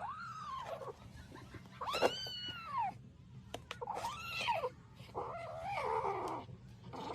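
A cat meowing four times in drawn-out calls, each rising then falling in pitch.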